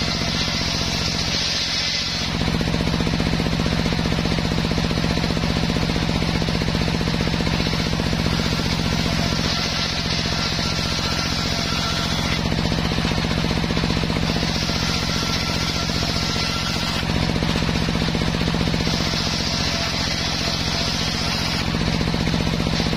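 Home-built table circular saw running with a steady drone while its large blade rips planks of waru (sea hibiscus) wood into battens. The cutting hiss rises over the drone in several stretches of a few seconds each, as each plank is fed through.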